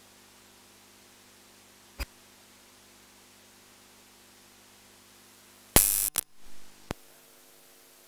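Faint steady hiss and hum of a quiet room, broken by a sharp click about two seconds in and a loud, sudden burst of noise about six seconds in that fades out, followed by one more click.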